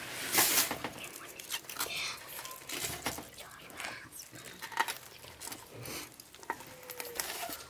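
Aluminium foil crinkling and rustling under a baked fish, with scattered sharp crackles and light clicks, loudest in a burst about half a second in.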